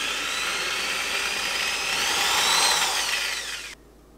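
Electric drill running as its bit drills out a stripped screw hole in a particle-board cabinet. The motor whine rises in pitch about two seconds in, falls again, and cuts off suddenly near the end.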